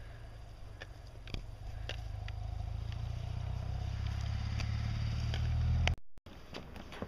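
Low rumble of wind buffeting the microphone, growing louder over several seconds and cutting off suddenly near the end, with a few faint ticks over it.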